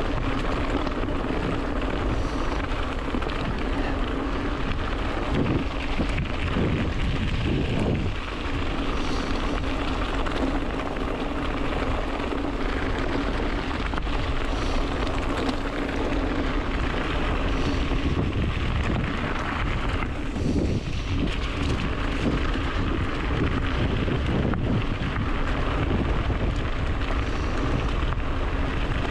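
Wind buffeting the microphone and mountain bike tyres rolling over a dirt and gravel road while riding downhill. It is a steady noise with a constant low hum running through it.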